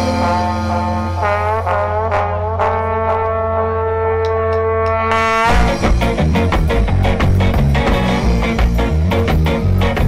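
Live band music in an instrumental passage. Held notes over a steady low drone, then about five and a half seconds in the drums and full band come in.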